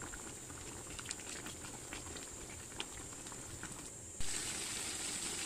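Chicken roast in a thick milk gravy simmering in a metal pot, bubbling with small scattered pops. A little after four seconds in, the sound cuts to a louder, steady hiss.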